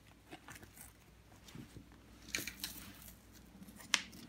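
Faint rustling and scratching of hands handling and pressing a leather-look patch around a sofa armrest, with a sharp click from a pair of scissors near the end.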